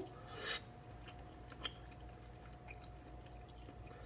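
A person faintly chewing a mouthful of hot beef chili, with a short hiss about half a second in and small wet clicks after it, over a faint steady hum.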